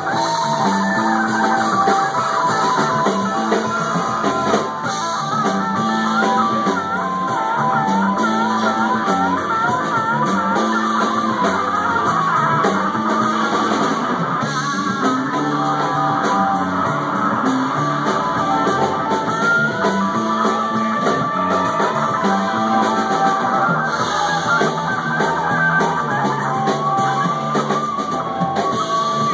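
Live blues band playing: electric guitars, bass and drum kit. A lead line with wavering, bending notes runs over the groove, most clearly from about six to ten seconds in.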